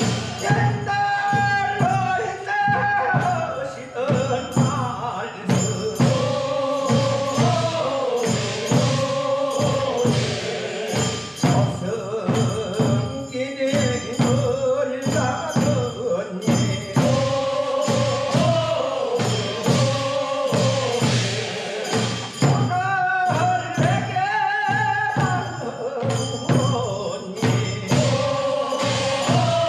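Korean funeral bier song (sangyeo sori): a group of men singing in chorus over a steady drum beat.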